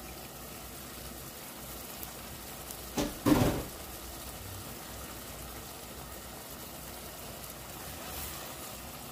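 A steady low hiss with one brief, loud clatter about three seconds in.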